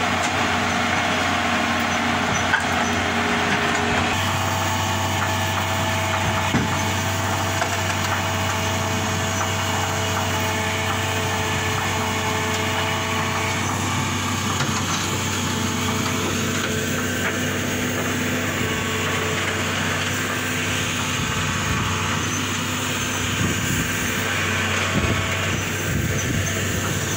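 Hitachi EX200 excavator's diesel engine running steadily while the machine works its way onto a lowbed trailer, with a few light knocks.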